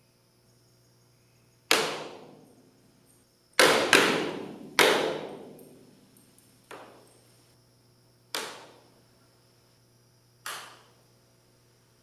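Spray foam insulation on a metal Quonset hut roof popping and cracking as it contracts and pulls away from the metal, leaving a gap. About seven sharp cracks come at irregular times, each ringing away over about a second. The loudest three come in quick succession about four seconds in.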